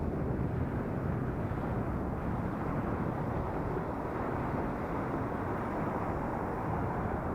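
Steady wind rush and road noise of a moving bike, picked up by a helmet-mounted action camera.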